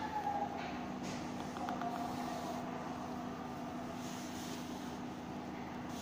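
Steady background noise with a constant low hum, and a wavering high tone, like a distant siren, fading out within the first two seconds.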